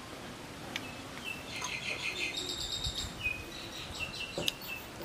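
A small bird chirping: a quick trill of high notes followed by several short whistled chirps. A sharp click is heard near the end.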